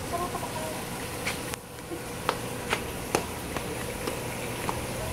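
Footsteps climbing stairs: a series of sharp taps about every half second, starting about a second in, over a steady buzzing hum.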